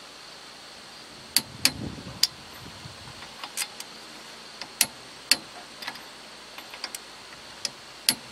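Click-type torque wrench and socket working the nuts on a rear brake drum's studs in a star pattern: a string of sharp metallic clicks and clinks at uneven intervals, the wrench clicking as each nut reaches its set 96 ft-lb.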